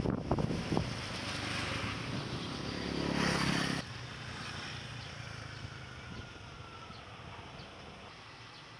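Outdoor background noise with a few short knocks at the start. It grows louder until it cuts off abruptly about four seconds in, then carries on quieter and steady.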